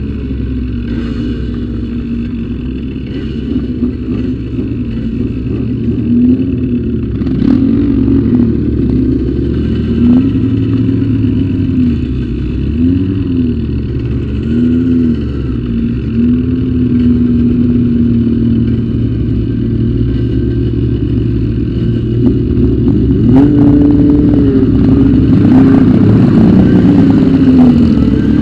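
Motorcycle engine ridden at low speed in city traffic, its revs rising and falling in short swells several times. It runs higher and louder for the last few seconds.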